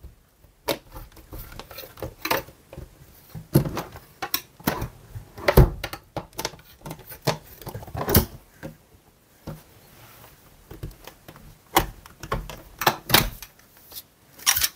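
A flat knife working along a plastic glazing bead in a double-glazed window frame, tapped in and levered to prise the bead out, giving irregular sharp clicks and knocks.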